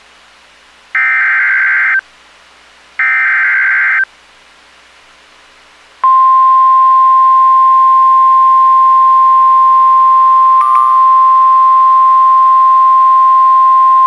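NOAA Weather Radio SAME digital header: two harsh, buzzy data bursts, each about a second long and a second apart. About six seconds in, the steady 1050 Hz warning alarm tone starts and holds. Together they are the alert signal that opens a severe thunderstorm warning broadcast.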